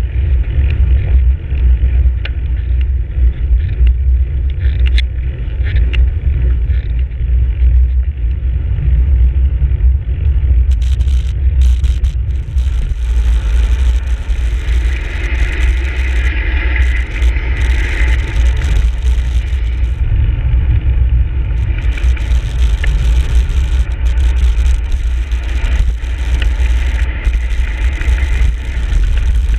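Steady low rumble of wind buffeting a handlebar-mounted camera's microphone on a road bike rolling at speed, with tyre hiss on asphalt that grows louder around the middle.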